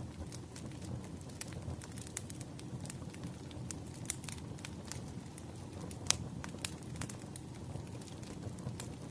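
Burning firewood crackling: irregular sharp pops and snaps over a low steady rumble, with one louder pop about six seconds in.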